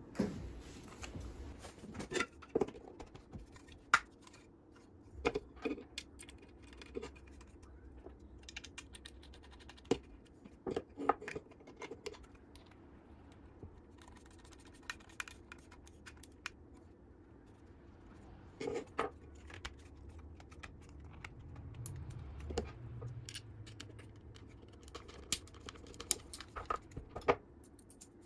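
Irregular light clicks, taps and scrapes of plastic and metal parts being handled and fitted together: 3D-printed TPU wheel guards and frame rails pushed onto the robot's metal body plates and set down on a wooden bench.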